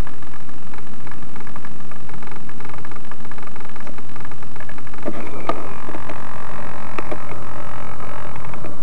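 Motors of a radio-controlled model A-10 Warthog, heard from the camera on board, running with a steady whine of many stacked tones. About five seconds in they throttle up louder for the take-off run, with a few knocks as the model bumps across the grass before it lifts off.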